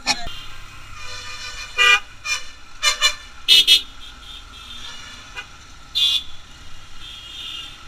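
Vehicle horns tooting in short blasts, about five in a few seconds, over a steady low hum of engines and traffic.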